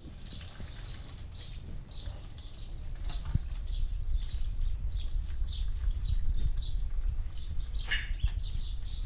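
Small birds chirping over and over in short, falling chirps, with a low rumble beneath, a single click about three and a half seconds in and a brief clatter near the end.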